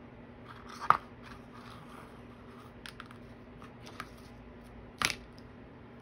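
Hands tying ribbon into a bow and handling a pair of fabric scissors: soft rustles and light clicks, with a sharp click about a second in and a louder scissor clack about five seconds in, over a faint steady hum.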